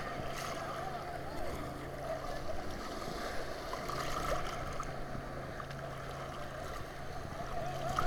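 Atlantic Ocean surf washing steadily around a wader, with small sloshes of water close to the microphone and a faint low hum underneath.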